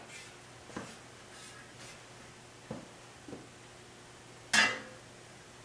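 Black painted metal drum-sander stand parts being handled: a few soft taps and knocks, then one louder short knock about four and a half seconds in, over a faint steady hum.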